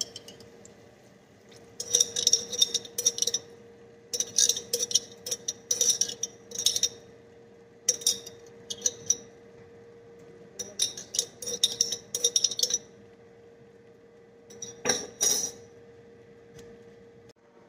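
A metal spoon clinking and scraping against a container in short clusters as thick coconut milk is scooped out over banana flower in a stainless steel pot, with a steady faint hum underneath.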